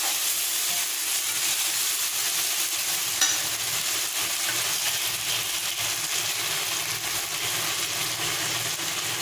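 Chopped onions with ginger, chilli and garlic paste sizzling steadily in hot oil in a kadhai, stirred with a spatula that scrapes the pan. A single sharp tap about three seconds in.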